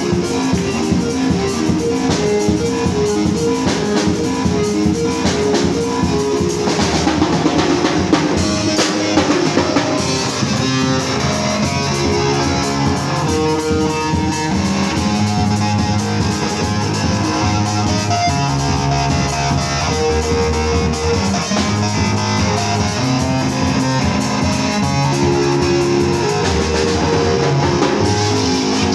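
Live band music: a Yamaha drum kit keeping a steady beat under a melodic accompaniment, with a bass line that grows heavier about ten seconds in.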